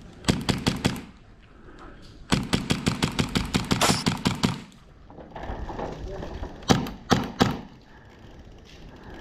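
Airsoft rifle firing: a short rapid burst, then a longer burst of about two seconds at roughly nine shots a second, then three single shots.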